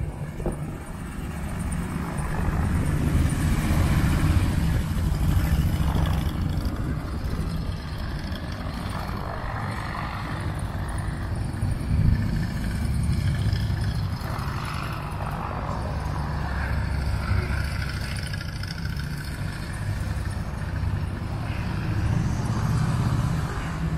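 Two police touring motorcycles running at low speed, their engine sound rising and falling as the bikes maneuver.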